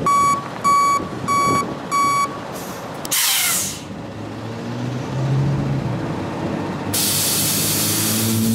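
Flatbed tow truck's reversing alarm beeping four times. About three seconds in comes a short, loud hiss of air brakes as the truck stops. The engine then idles, and a longer hiss follows near the end.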